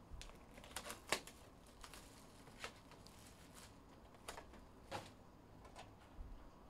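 Faint, scattered clicks, taps and rustles as a sealed trading-card hobby box and its plastic wrapping are handled and opened.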